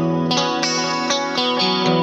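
Electric guitar played through Joyo Future Chorus and Time Magic delay pedals into an Orange Micro Terror amp, picking chords about three strokes a second, with a chord change near the end.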